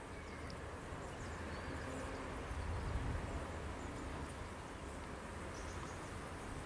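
Steady outdoor ambience: an even hiss over a low rumble that swells briefly about halfway through, with a few faint, short high chirps scattered across it.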